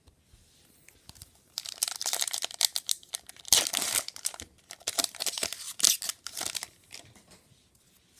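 A foil trading-card pack wrapper being torn open and crinkled by hand, a run of crackling, rustling bursts lasting about five seconds.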